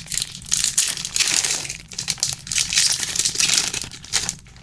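Plastic trading-card pack wrapper crinkling in several bouts as it is torn open and handled.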